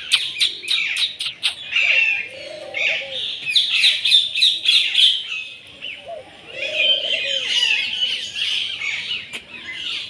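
Many birds chirping and twittering at once in a dense, overlapping chorus of high calls, with rapid clicky notes in the first second and a half. A lower call that rises and falls comes twice, about three and seven seconds in.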